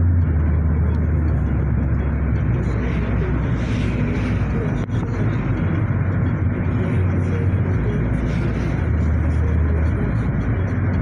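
Cabin noise of a car driving on a city road: a steady low rumble of engine and tyres heard from inside the car.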